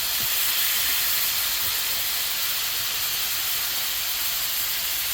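Flour-dredged deer meat frying in hot oil in a cast iron skillet: a steady sizzle.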